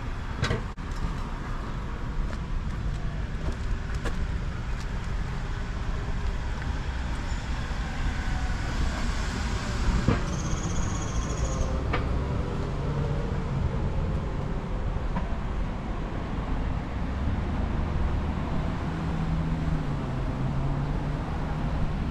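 Road traffic on a multi-lane road: a steady rumble and hiss of cars passing, with a low engine hum in the second half. About ten seconds in, a high steady tone sounds for about a second and a half.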